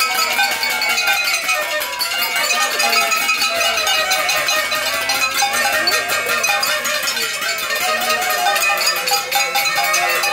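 Continuous din of New Year's noisemakers: party horns blown over and over, with rapid metallic clanging and rattling, as of pot lids being banged.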